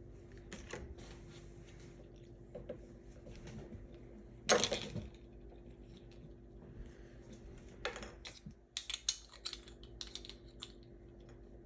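Small plastic toy pieces handled and clicked together: scattered light clicks, a louder rustle about four and a half seconds in, and a quick run of sharp clicks near the end.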